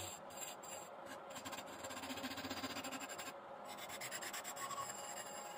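Hand-held turning tool scraping against spinning wood on a lathe: a steady scratchy rubbing that runs on without a break.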